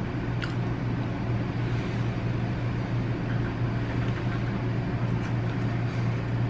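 Steady low mechanical hum, with a faint click about half a second in.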